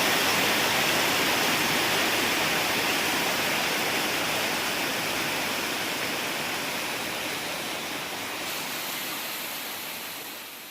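Steady rushing water, fading out slowly.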